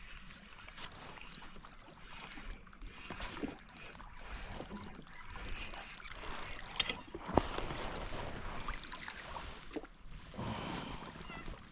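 Handling noise aboard a fishing kayak: scattered knocks and clicks, a quick run of rapid ticking a few seconds in, then a short rush of hiss.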